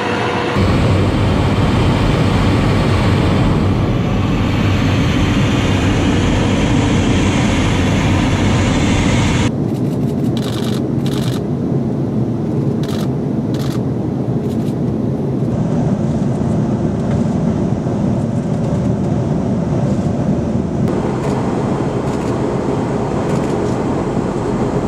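Tornado GR4's twin RB199 turbofan jet engines running with a loud, steady rumble. The sound changes abruptly about half a second in, near ten seconds and again around twenty-one seconds, as shots change.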